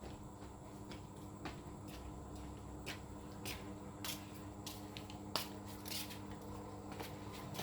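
Scattered small clicks and light handling sounds of fan parts being worked on by hand, the sharpest click about five seconds in, over a steady low hum.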